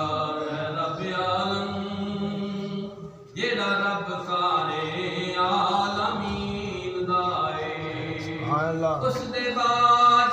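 A man's voice chanting a naat, unaccompanied devotional verse, in long held melodic lines with wavering ornaments, breaking off briefly about three seconds in.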